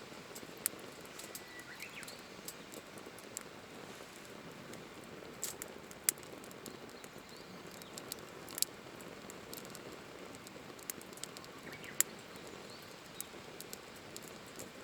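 Hardwood log fire burning in a Firebox stove, crackling with irregular sharp pops, the loudest about six and twelve seconds in.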